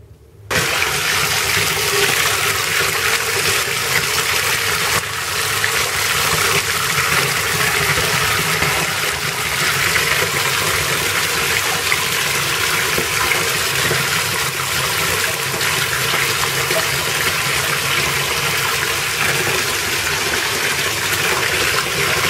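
Bath tap running into a filling bathtub: a steady rush of pouring water, with a hand holding a bubble bar in the stream. It starts about half a second in.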